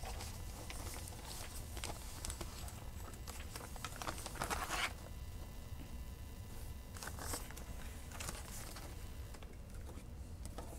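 Plastic kit packaging crinkling and paper pattern sheets rustling as a cross-stitch kit is unpacked by hand, loudest about four to five seconds in.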